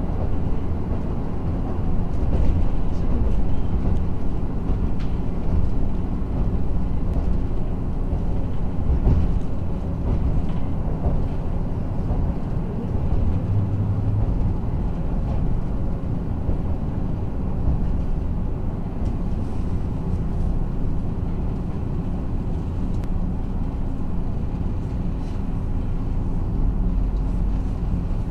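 Steady engine drone and running rumble heard inside the cabin of a KiHa 54 diesel railcar.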